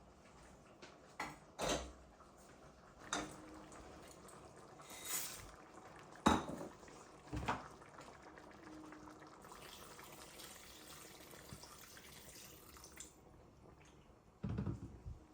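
Kitchen work: dishes and utensils clinking and knocking, a handful of separate strikes, the loudest about six seconds in, with a few seconds of running water past the middle.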